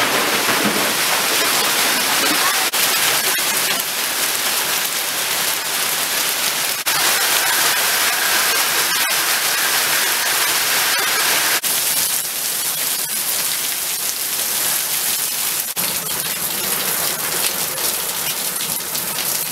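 Heavy rain pouring down as a dense, steady hiss of water striking surfaces, changing abruptly every few seconds.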